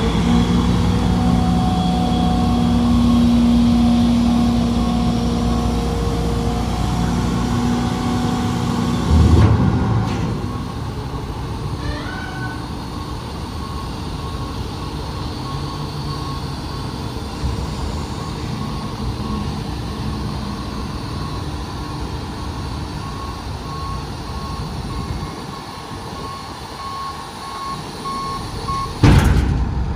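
Heil Dura Pack 5000 rear loader garbage truck lowering its hydraulic tailgate, the diesel engine running steadily under hydraulic load while a beeping alarm sounds on and off. There is a heavy clunk about nine seconds in and another, the loudest, near the end as the tailgate comes down closed.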